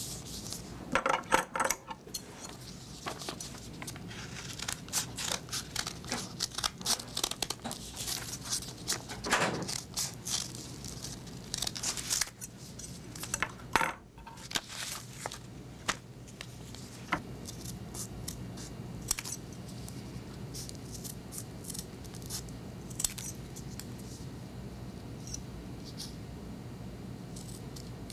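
Scissors cutting paper hexagons from a sheet of notebook paper: irregular sharp snips and clicks with paper rustling as the sheet is handled. The snips come thickest in the first half and grow sparser later, over a faint steady low hum.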